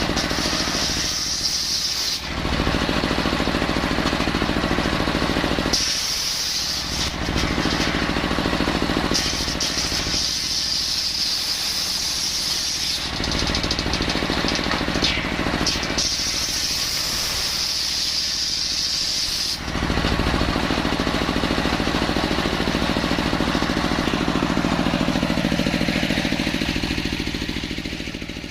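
Engine-driven circular saw running and cutting coconut-palm wood, its sound changing every few seconds as the blade works in and out of the cut. The sound fades away near the end.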